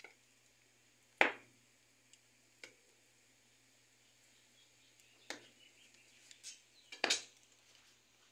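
A few sharp knocks and clacks of objects being handled at a wood-fired hearth: the loudest is about a second in, with a close double knock near the end.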